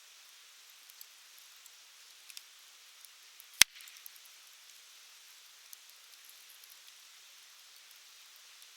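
Wood campfire burning: a steady soft hiss of flames with scattered small crackles, and one loud sharp pop a little over three and a half seconds in.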